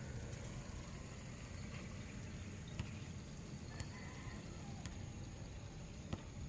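Faint, steady low outdoor background rumble, with a few faint scattered clicks.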